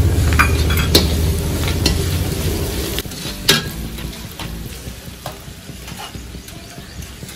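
A slotted metal spatula stirs and scrapes spice masala frying in ghee in a kadhai, with sharp clinks of metal on the pan over a steady sizzle and a low rumble that fades over the first three seconds. About three and a half seconds in, one louder clink is heard. After it the stirring stops and the sizzle carries on, growing quieter.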